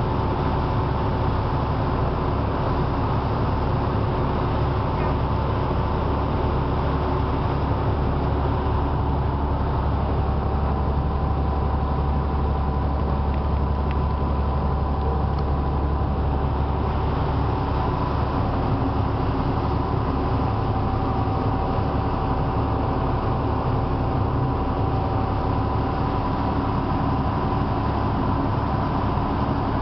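A passenger ferry's engine running steadily under way: a constant low drone with a thin, steady high whine riding over it.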